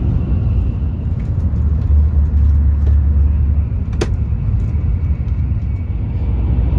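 Shinkansen train running, heard from inside the passenger cabin: a steady low rumble that swells for a second or two in the middle, with one sharp click about four seconds in.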